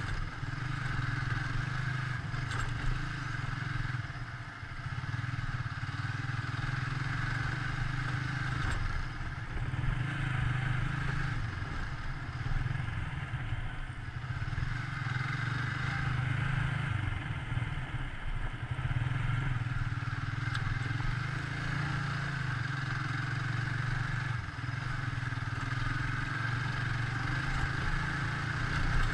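Motorcycle engine running steadily as the bike rides along, its note dipping briefly a few times as the throttle eases off.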